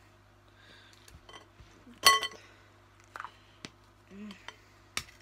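Glass mixing bowl and wire-mesh sieve clinking as things are handled over them. One loud ringing clink comes about two seconds in, with a few lighter taps and clicks after it.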